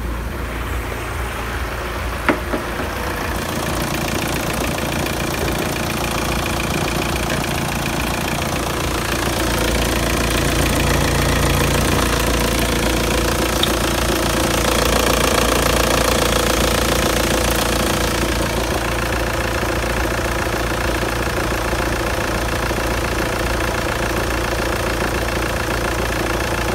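Audi 80 B4's 1.9 TDI (1Z) four-cylinder turbodiesel engine idling steadily with its diesel clatter. There is a single short knock about two seconds in.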